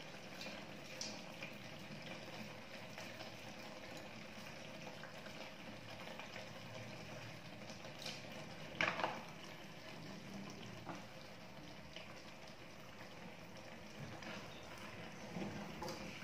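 Curry simmering faintly in a pot, a steady low bubbling. A few soft taps and one short louder knock about nine seconds in, then a wooden spoon stirring through the pot near the end.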